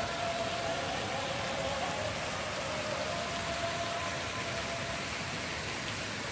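Fountain jets spraying and falling back onto the lake: a steady rushing, rain-like hiss. A faint held tone sounds over it and fades out about five seconds in.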